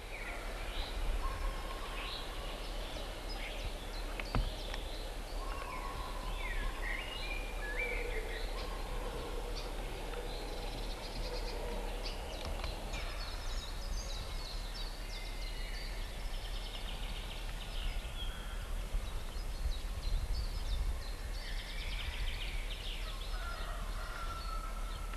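Several birds singing and calling in spring woodland: many short chirps, trills and whistled glides overlapping throughout. A steady low hum runs underneath, with a single sharp click about four seconds in.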